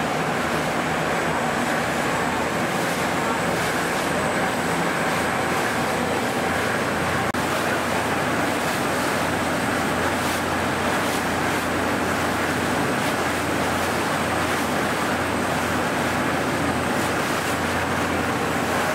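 Tour boat's engine running steadily under way, a constant low drone with a rushing noise over it.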